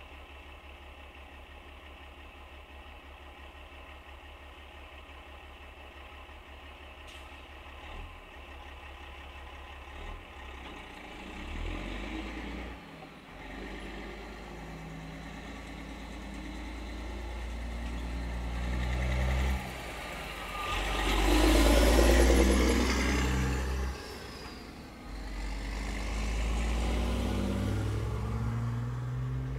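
Road traffic heard from inside a stopped car: a low steady rumble, then vehicles pulling away from the intersection with rising engine notes. The loudest one sweeps past between about 20 and 24 seconds in.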